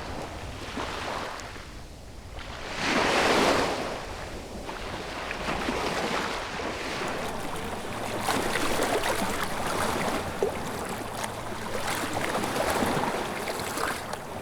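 Surf breaking on a beach: one wave crashes loudly about three seconds in, then the water keeps washing and fizzing steadily.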